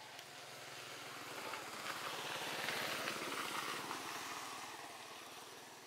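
A motor vehicle passing by: its engine grows louder, is loudest about three seconds in, then fades away.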